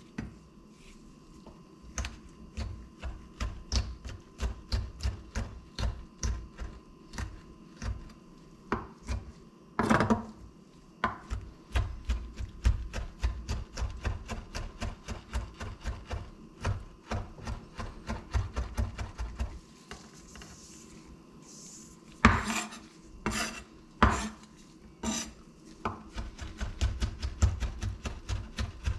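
Chef's knife chopping green olives on a wooden cutting board: quick light taps of the blade on the board, about three or four a second, with a short pause about two-thirds of the way through followed by a few heavier knocks.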